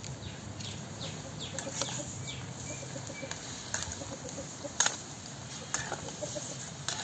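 Chickens clucking and chirping, with a run of short falling chirps in the first two seconds or so. A metal ladle clinks against the pan a few times as the pork pieces are stirred; the sharpest clink comes about five seconds in.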